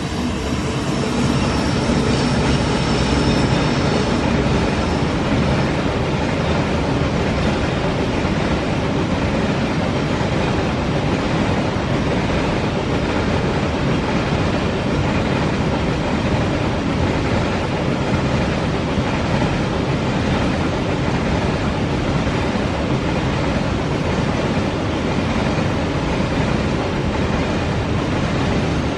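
Long coal train's wagons rolling past on curved track: a steady, loud rumble and rattle of wheels on rail, swelling over the first two seconds and then holding even.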